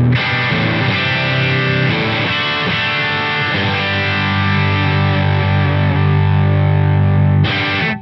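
Single-coil electric guitar played through a Fish Circuits Model One overdrive pedal into a Fender Deluxe Reverb amp: a continuous overdriven riff with a rich, full low end.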